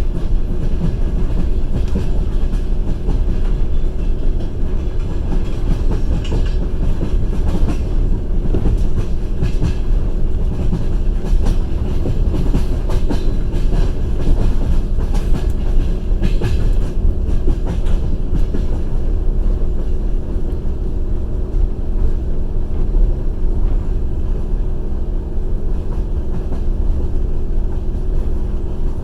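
Passenger train running along the line, heard from inside the carriage: a steady low rumble of wheels on rails with scattered clicks from the wheels knocking over the rail joints, and a steady hum underneath.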